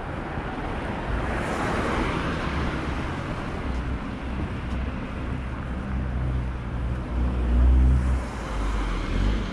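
Street traffic: a car passes with a rising and falling rush of tyre noise about two seconds in, then a vehicle engine's low rumble builds and is loudest near the end.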